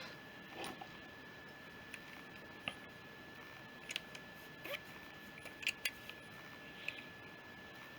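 Scattered light clicks and taps of small metal carburettor parts being handled, as a nut is fitted during carburettor reassembly, over a faint steady high-pitched hum.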